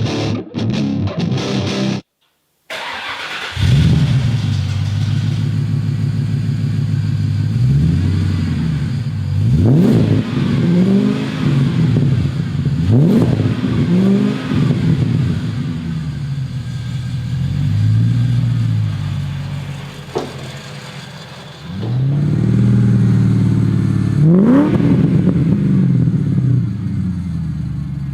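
Ford BA Falcon XR8 V8 starting and idling through a newly fitted aftermarket mild steel cat-back exhaust with high-flow catalytic converters, blipped up to higher revs several times. Background guitar music plays for the first two seconds, then cuts off briefly before the engine starts.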